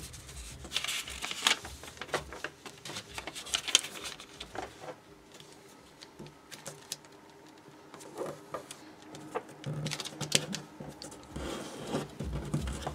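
Origami paper being folded and creased by hand: crinkling and rustling with crisp clicks, in bursts about a second in, around four seconds in and around ten seconds in, quieter in between.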